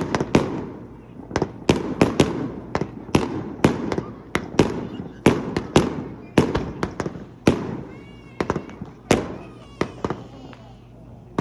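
Fireworks bursting in a rapid, uneven barrage: sharp bangs every fraction of a second, each trailing off in a rumbling echo.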